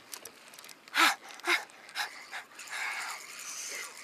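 A man panting with short effortful breaths, three of them about half a second apart, while reeling in a heavy fish on a rod, followed by a steady hiss.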